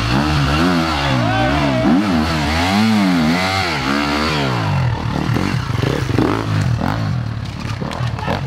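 Enduro dirt bike engine revving, its pitch rising and falling again and again as the throttle is worked, then running more evenly from about five seconds in.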